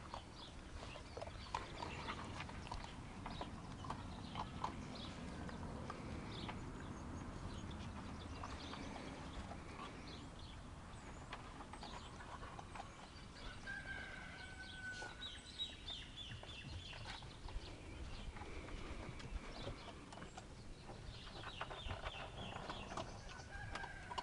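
Thai Ridgeback puppies playing and feeding: faint scuffling and small clicks, with short high animal calls now and then, mostly in the second half.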